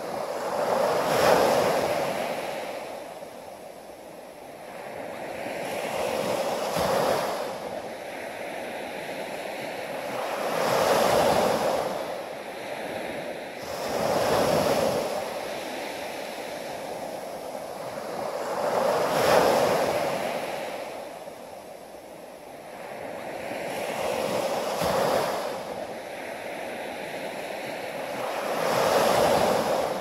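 Small waves breaking and washing up a sandy beach, the surf swelling and falling away about every four to five seconds.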